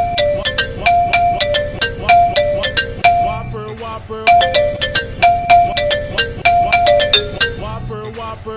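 A messaging-app ringtone melody of quick, distinct notes. The roughly four-second phrase plays through twice and then cuts off.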